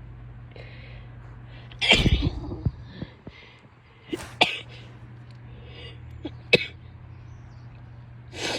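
A woman sneezing. Two quick breaths in lead to a loud sneeze about two seconds in, and a few shorter, sharp sneezing sounds follow later.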